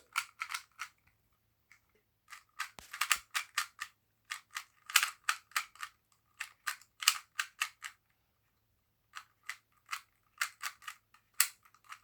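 Plastic twisty-puzzle cube being turned rapidly by hand in a speed solve: quick runs of sharp clicks and clacks as the layers snap round, with brief pauses about two seconds in and again around eight seconds in.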